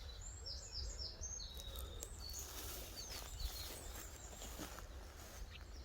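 Small birds chirping in quick runs of high notes over a steady low wind rumble on the microphone, with a brief rustle about two and a half seconds in.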